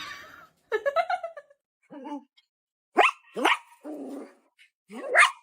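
A dog barking in a string of short, separate barks, the loudest about three seconds in and near the end.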